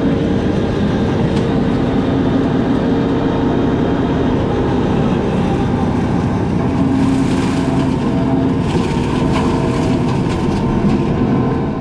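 Heavy diesel machine running steadily while its brush-cutting attachment chews through brush, with scattered sharp cracks of wood snapping, more of them in the second half.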